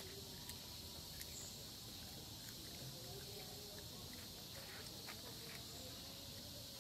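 A steady insect chorus holding one high hiss, with a few faint scattered clicks.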